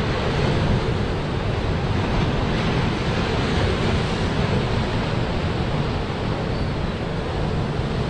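Sea surf washing and breaking over a rocky shore in a steady rushing wash, with wind rumbling on the microphone.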